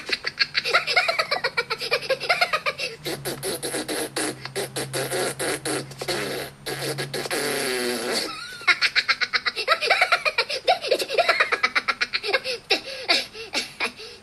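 Cartoon Minions characters babbling and laughing, with rapid clicking sounds between the voices, played from a smartphone's speaker.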